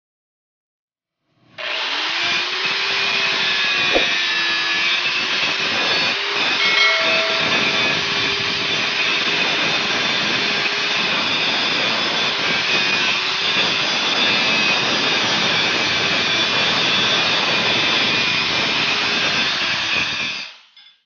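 Angle grinder grinding a welded 19 mm round bar: a loud, steady grinding hiss over the motor's whine, starting about a second and a half in with a brief rise in pitch as it spins up. There is a sharp tick about four seconds in, and the sound stops abruptly near the end.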